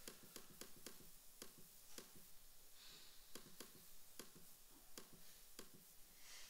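Faint, quick run of clicks from a presentation's slide controls, about four a second and spacing out later, as the slides are stepped back through one after another.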